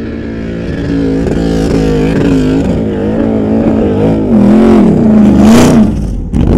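A 4x4's engine revving hard as it climbs a sand dune, its pitch rising and falling with the throttle and getting louder as it goes. A brief rushing hiss comes about five and a half seconds in, and the engine drops out for a moment near the end before coming back louder.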